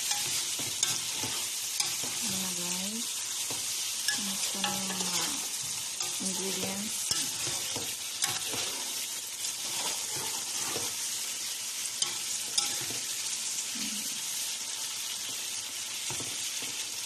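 Chicken pieces sizzling as they fry in oil in an aluminium pot, browning before the sauce goes in. A slotted spatula stirs and turns them, knocking and scraping against the pot in scattered sharp clicks.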